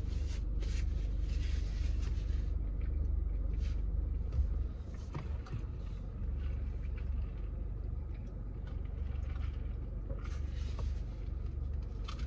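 Steady low rumble of a car idling, heard inside the cabin, which drops a little about four and a half seconds in, with faint chewing and handling noises over it.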